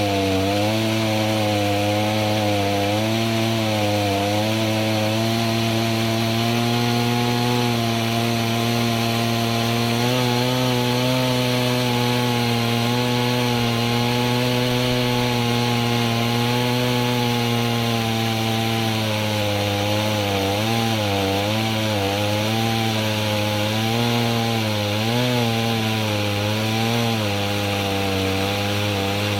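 Gasoline chainsaw running under load while ripping a log lengthwise in a chainsaw-mill attachment. The engine note holds fairly steady, wavering and dipping in pitch as the cut loads it, most often in the last third.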